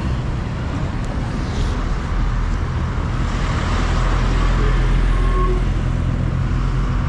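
Road traffic passing close by: a vehicle's engine and tyre noise builds to a peak past the middle, then eases, over a steady low rumble.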